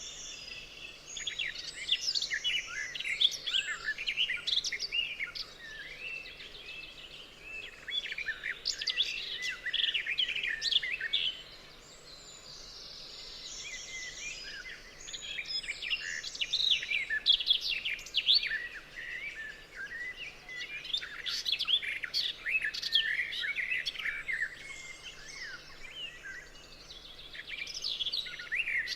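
Several songbirds chirping and trilling together in a forest dawn-chorus style, in busy bouts of quick rapid notes with a brief lull midway.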